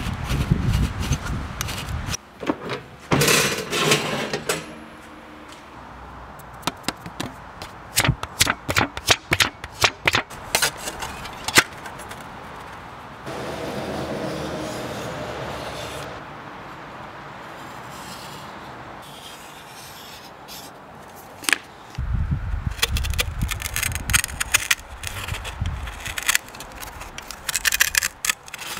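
Close-up handling sounds of small metal stove parts and mica sheets on a wooden workbench: rubbing, scraping and many sharp clicks and taps. Around the middle there is a few-second stretch of steady scratching as a marker pen traces onto a mica sheet.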